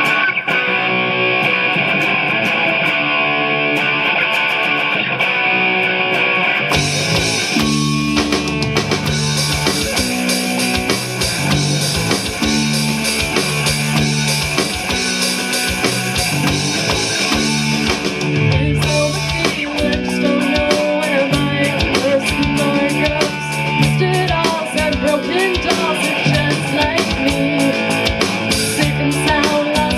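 Alternative rock band playing an original song: guitar alone at first, then the full band with drum kit comes in about seven seconds in.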